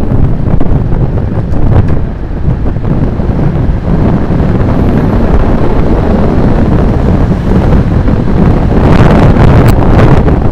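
Heavy wind buffeting the camera microphone on a fast road-bike descent, a loud continuous rumble. About nine seconds in, a louder rush of higher hiss swells for a second or so.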